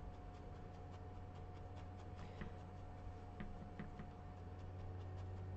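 Felting needle stabbing wool into a needle-felted barn owl's body, heard as faint, irregular light ticks about two a second over a steady low hum.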